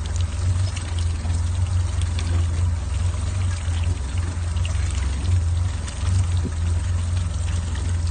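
Mercury four-stroke outboard motor idling unevenly, with a steady sound of water pouring and splashing alongside. The rough idle was traced to a faulty thermostat.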